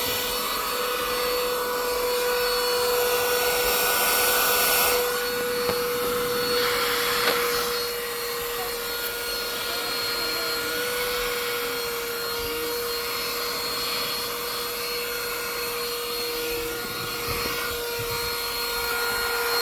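Small handheld car vacuum running steadily, a constant motor whine over a rush of air. The airflow hiss grows brighter for about a second around four seconds in and again briefly near seven seconds.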